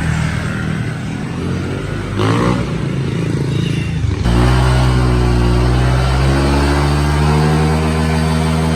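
Motorbike engine revving, its pitch rising and falling. About four seconds in, the sound changes abruptly to a louder, steadier engine note that dips and rises slightly.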